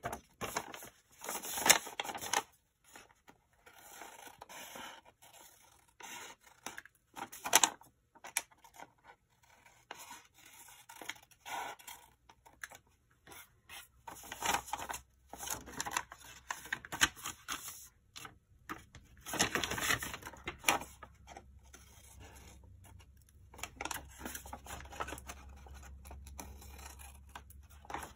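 Scissors cutting through brown paper in short, irregular snips, with the sheet rustling as it is turned and handled.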